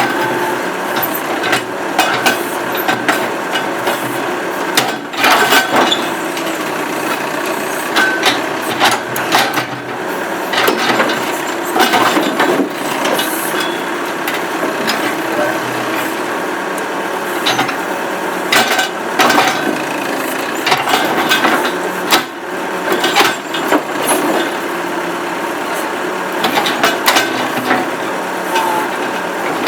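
Massey Ferguson 50A tractor-backhoe running steadily while digging out a tree stump, with frequent sharp, irregular knocks and clanks.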